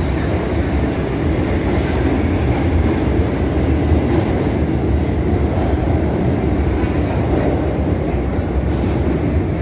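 New York City Subway train pulling out of an underground station. The cars rumble and clatter steadily along the rails as they pass.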